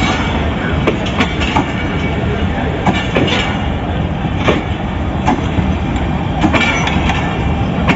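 Pakistan Railways passenger coaches rolling past as the train pulls out: a steady rumble of wheels on rail, with irregular sharp clacks as the wheels pass over rail joints.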